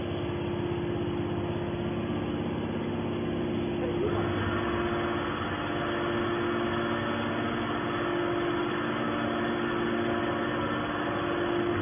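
Hydraulic can baler running with a steady machine hum; about four seconds in, a higher hiss joins it.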